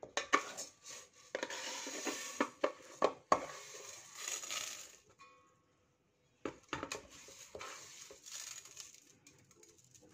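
Dry uncooked rice scooped with a small cup and poured into a stainless steel bowl: a hiss of grains spilling onto metal, with sharp clicks and scrapes of the cup against the bowl. It stops for about a second and a half midway, then a second scoop and pour follows.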